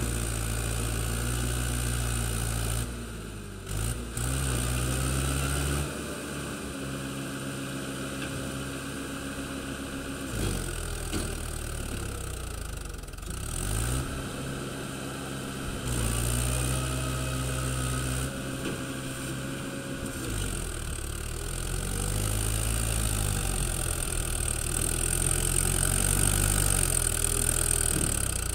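Mahindra tractor's diesel engine running as it pulls a trailer, its speed rising and falling again and again, with steady stretches in between.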